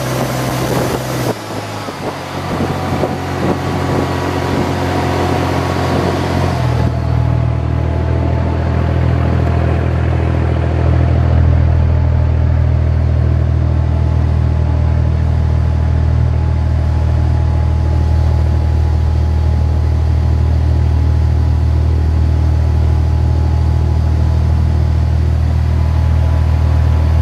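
Fishing boat's engine running steadily under way, a loud low drone. A rushing hiss over it fades out about seven seconds in, leaving the engine drone stronger and even.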